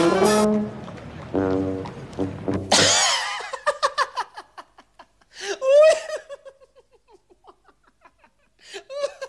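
Brass music ending about three seconds in, then a man laughing in rapid, repeated chuckles, with a loud burst of laughter about six seconds in and another near the end.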